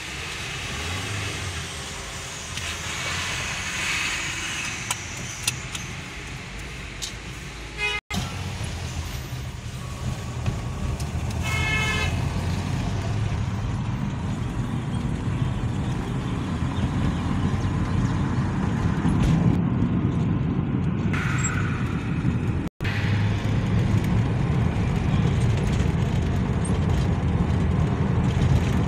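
Car road and engine noise heard from inside the cabin, a low rumble that grows louder as the car picks up speed on the highway. A short horn toot sounds about twelve seconds in.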